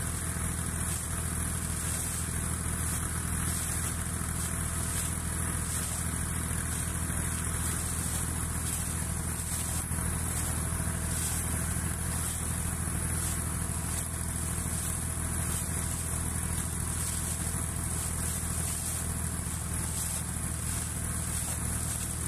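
Air compressor running steadily with a low, even drone, blowing air down a borewell so that water is air-lifted up the pipe and gushes out of its top with a steady hiss.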